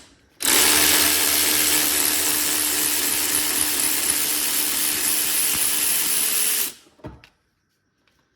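Power tool with a socket running steadily for about six seconds as it spins a front suspension bolt loose, then stopping, followed by a single knock.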